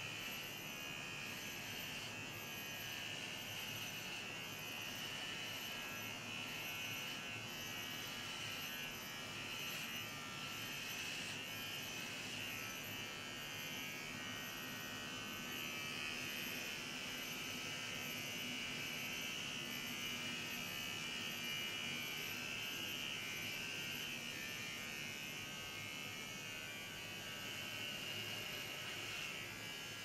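Electric shaver buzzing steadily as it is run over a freshly shaved scalp.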